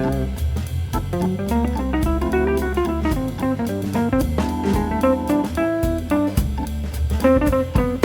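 Background music: a light guitar tune with bass and drum kit.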